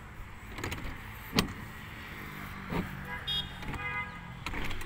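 Metal clicks and knocks from the rear door hardware of an insulated truck container, its lock handles and lock rods being worked, about five in all, the loudest about a second and a half in. A short high tone sounds about three seconds in, over a steady low hum.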